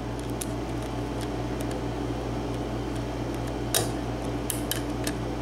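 Small air conditioner running steadily, with scattered light, sharp clicks from a lock pick working the pins of a Sargent cylinder lock. The loudest click comes about four seconds in.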